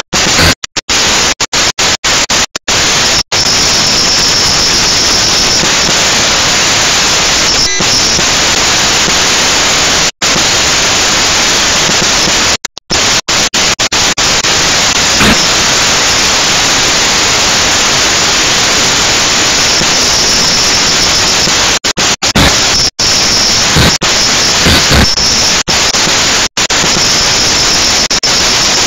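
A toy quadcopter in flight, heard through its onboard camera's microphone as a loud, steady static-like hiss of propellers and motors with a faint high whine at times. The sound is broken by many sudden brief cut-outs, most of them near the start and in the last third.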